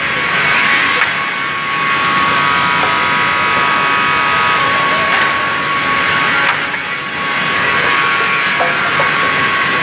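Multi-blade rip saw running and cutting boards: a steady high whine over the rasp of the blades in the wood, briefly easing twice, at about one and a half and seven seconds in.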